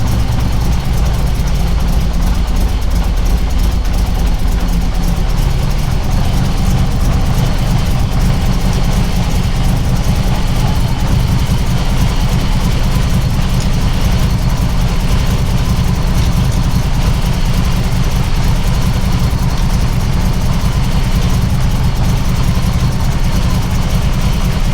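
Car engine idling steadily with its ignition locked at a fixed 10 degrees base timing by the Megasquirt. The idle sounds super retarded, because retarding the exhaust cam with new cam gears shifted the cam sensor that drives the timing.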